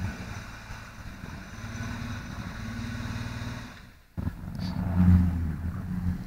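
SUV engine running as the vehicle drives through snow, cutting out briefly about four seconds in, then coming back louder and revving.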